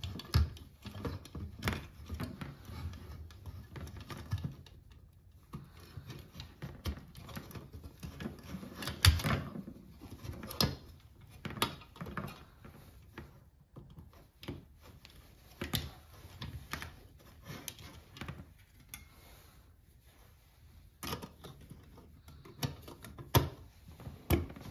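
Scattered sharp clicks, taps and rustles as hands work the wiring and small metal junction box of an LED can light: wires pressed into Wago push-in connectors, and the box's cover pushed into place near the end.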